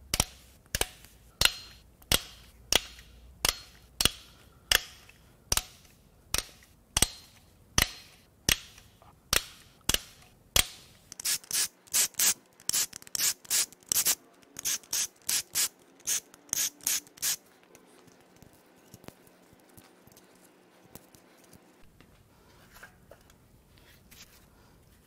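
Hand ratchet wrench clicking: steady strokes about one and a half a second for about ten seconds, then quicker short strokes, stopping about seventeen seconds in, followed by faint tool handling.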